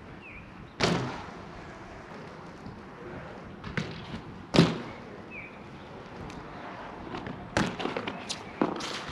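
BMX bike hopping on and off concrete banks: sharp clattering impacts of tyres and frame landing on concrete, one about a second in, the loudest around halfway, and a quick cluster near the end. Tyres rolling on concrete in between.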